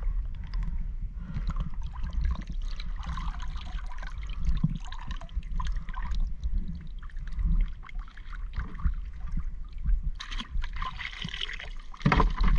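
Seawater sloshing and dripping against the side of a small boat, with scattered knocks from handling, over a low steady rumble. A louder splash comes near the end as a hand goes over the side into the water.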